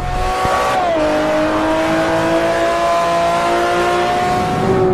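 A high-revving vehicle engine accelerating hard through the gears. Its pitch drops sharply about a second in and again near the end at the gear changes, and climbs steadily in between.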